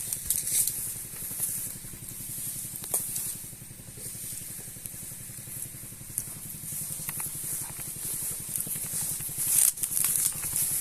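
Pressurised spray hissing from a long-hose spray lance, swelling and fading, over the steady running of the small engine that drives the sprayer pump.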